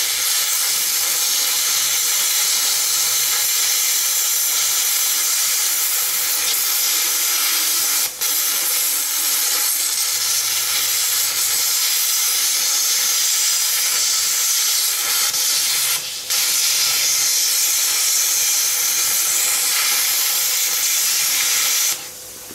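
Plasma cutter's arc hissing steadily as it cuts the silent block out of a steel suspension arm, with two brief breaks in the arc and cutting off near the end.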